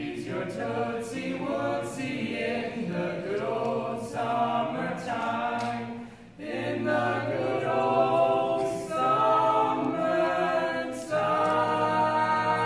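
Male barbershop-style quartet singing a cappella in close four-part harmony. There is a short break a little past halfway, and the song ends on a long held chord.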